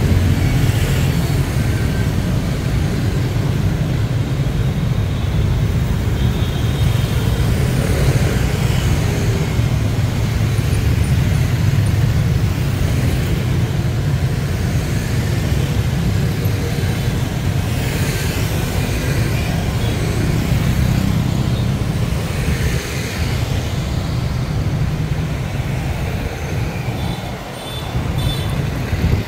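Steady city road traffic, motorbikes and cars passing on a busy road, a continuous rumble of engines and tyres that dips briefly near the end.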